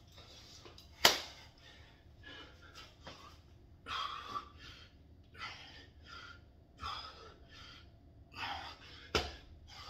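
A man breathing hard in short, forceful puffs while exercising. There is a sharp knock about a second in, the loudest sound here, and another near the end.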